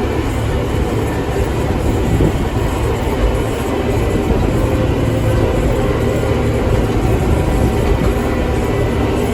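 Tractor engine running steadily, loud and close, with a constant low rumble.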